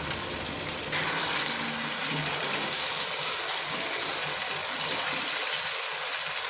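Meat and potatoes sizzling in oil in a non-stick wok while a spatula stirs and scrapes through them, with small clicks of the spatula against the pan; the sizzle grows louder about a second in. This is the dry frying (bhuna) stage, cooking the meat until the oil separates.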